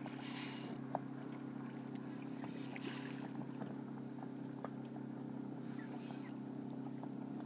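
A boat motor hums steadily at a low pitch, with three short hissy splashes as a hooked redfish thrashes at the surface.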